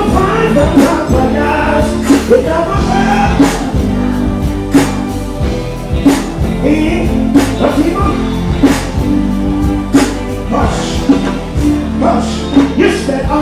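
Live concert music over a stage sound system: a band with a steady beat and a man singing into a microphone.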